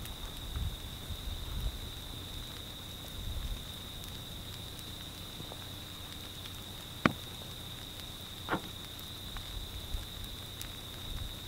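Quiet ambience beside a slowly oozing pahoehoe lava breakout: a steady high-pitched hum, a few low rumbles near the start, and two sharp cracks a second and a half apart in the second half, from the cooling lava crust snapping.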